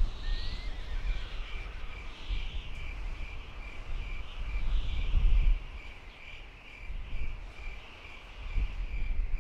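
Outdoor nature ambience: a steady series of short high chirps about three a second, like an insect or small bird, with other birds calling and a short rising call just after the start. A low rumble swells and fades underneath.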